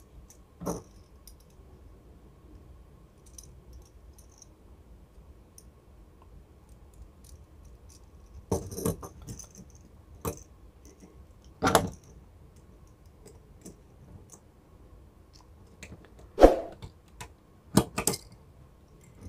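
Scattered clicks and light knocks from a small screwdriver and a plastic two-way light switch being handled on a tabletop while wires are fastened into the switch's screw terminals. A few sharper knocks come near the end.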